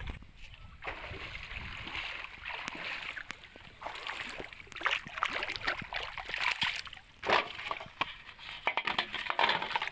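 Shallow water sloshing and splashing around hands and a plastic bottle, in uneven swells with scattered sharp knocks; the loudest knock comes about seven seconds in.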